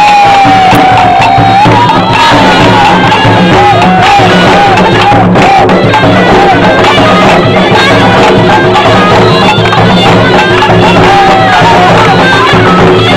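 Loud live traditional folk music: a wind instrument plays an ornamented melody over a steady low drone, with a crowd around it.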